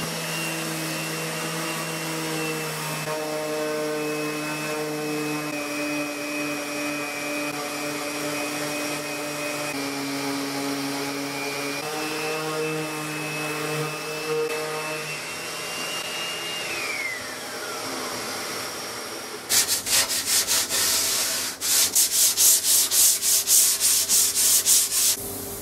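DeWalt 125 mm random orbital sander with a dust-extraction hose running steadily on a wooden chest top, then switched off about 16 seconds in, its hum falling as it spins down. From about two-thirds of the way through, a sanding block is rubbed by hand along the top's edge in quick, even back-and-forth strokes.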